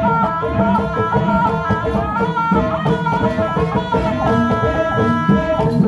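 Javanese jaranan ensemble music playing: drums beating a busy rhythm with gongs and a stepped melodic line over them.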